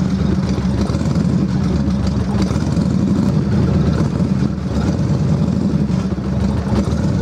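Yamaha cruiser's air-cooled V-twin idling steadily, warming up before its oil is drained.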